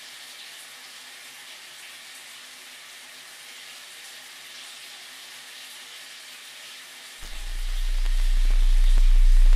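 Shower head spraying water, a steady hiss. About seven seconds in, a deep low drone fades in and swells to become the loudest sound, with a sharp tick near the end.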